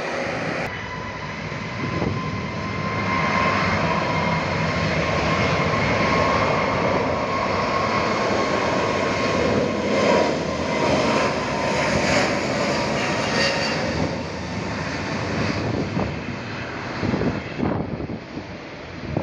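Airbus A321neo's Pratt & Whitney PW1100G geared turbofan engines, heard as the jet passes close by, with a steady whine. The sound builds, is loudest in the middle and eases off toward the end, with a few short thumps near the end.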